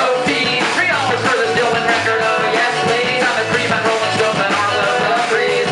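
Live rock band playing a song: strummed acoustic guitar, electric bass and drums, at a steady beat.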